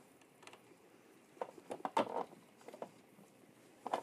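Faint, irregular clicks and scrapes of a deep socket turning a brass nozzle into a 3D printer's hot-end heater block, tightening it toward snug. The loudest cluster comes about two seconds in.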